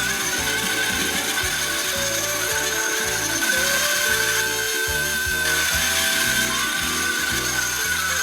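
Small electric motor and gear train of a battery-operated tin toy Boeing 727 airliner running with a steady whirr. Background music with a regular beat plays alongside it.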